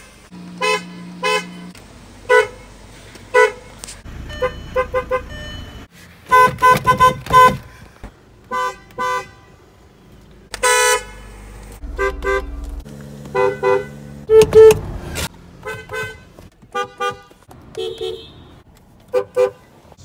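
Car horns of several different cars pressed one after another, among them a 2011 Kia Sorento and a 2015 Volkswagen Golf. Mostly short honks in pairs and quick bursts of two to four, with one longer blast about eleven seconds in.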